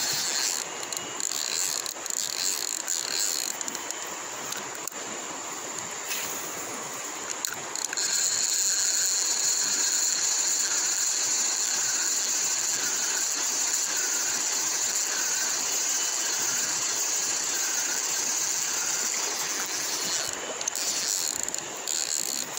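Spinning reel being worked while a hooked fish is played on a bent rod, a mechanical rattle with a few clicks, over a steady high-pitched hiss that grows louder about a third of the way in.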